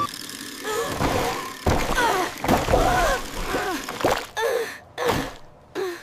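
Cartoon characters making wordless vocal sounds, gasps and groans, with a low rumble about two seconds in. It ends in a run of short, separate grunts.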